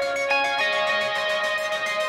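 Background music: a song with held notes that change pitch a few times.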